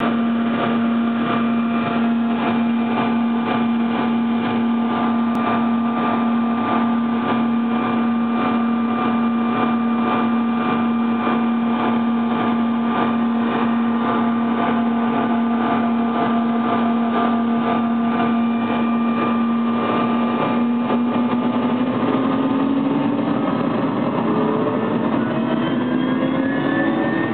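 Helicopter turbine engines and main rotor heard from inside the cabin, running steadily on the ground with a strong hum and a regular pulsing beat. About three quarters of the way through, the pitch of all the tones starts rising as power comes up for take-off.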